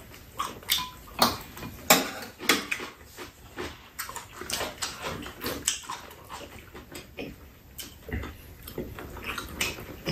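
Close-up eating sounds: chewing with quick, irregular clicks and scrapes of spoons and chopsticks against bowls and the pan.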